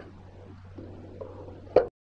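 Faint steady low hum with light handling noise, then one sharp knock near the end, after which the sound cuts off to dead silence.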